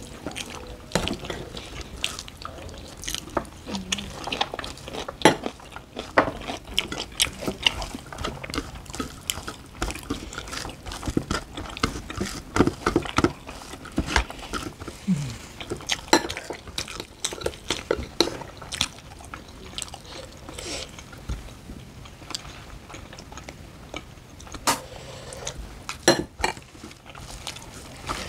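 Eating sounds of two people at a meal of rice and curry: wet chewing and mouth clicks, with a spoon clinking and scraping against plates and bowls, in short irregular clicks throughout.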